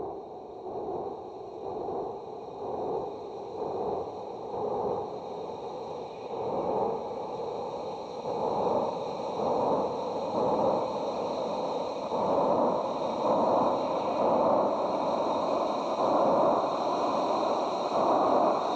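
Analog modular synthesizer noise texture from an industrial techno track: a filtered noise swell pulsing about once a second and growing steadily louder, with a few thin steady high tones above it.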